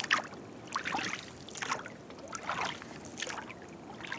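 Oars of an inflatable rowing boat pulling through the water, with a short splash and swish about every second.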